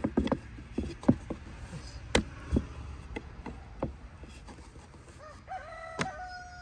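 Scattered sharp clicks and knocks, then a rooster crowing near the end: one long held call.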